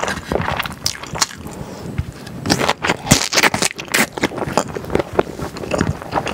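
Close-miked mouth sounds of chewing a mouthful of thick glass noodles and beef brisket: wet, sticky smacking and clicks, busiest around the middle.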